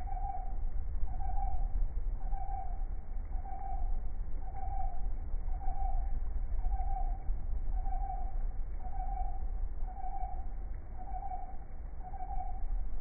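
An unexplained hooting tone, one short note repeating evenly about once a second over a low rumble.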